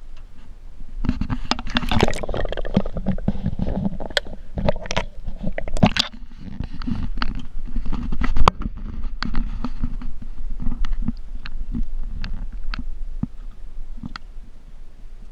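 Muffled knocks, scrapes and many sharp clicks over a low rumble, made by handling on a small jon boat while a hooked bass is fought up to the side of the boat. The noise is loudest about a second in and again around the middle.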